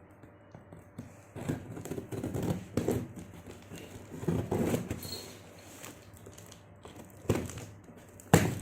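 A parcel's packaging being handled and opened: irregular bursts of plastic and cardboard rustling and crinkling, with two sharp knocks near the end.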